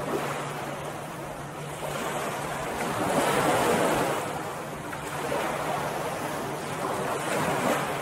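Ocean surf washing onto a beach: a noisy rush that swells and ebbs, loudest a few seconds in and again near the end.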